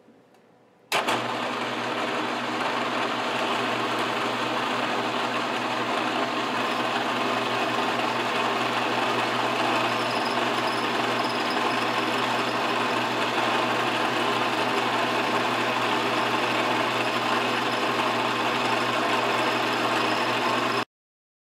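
Milling machine running a quarter-inch end mill through a metal plate: a steady motor hum with the hiss and chatter of the cut. It starts abruptly about a second in and stops abruptly near the end.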